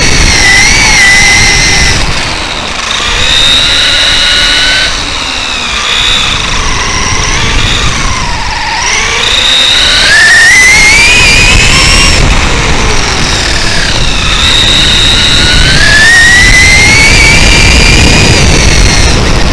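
Electric RC truck's 2200kv brushless motor and gear drivetrain whining, the pitch repeatedly falling and then climbing steeply as the truck slows and accelerates, over heavy wind and tyre rumble from the on-board camera microphone.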